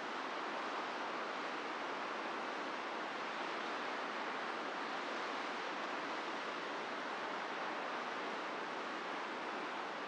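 Ocean surf breaking on a beach, heard as a steady, unbroken wash of noise with no single wave crash standing out.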